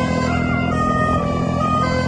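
Multi-tone telolet bus horn playing a melody: several held tones step from pitch to pitch, with a few short glides, over a steady low drone.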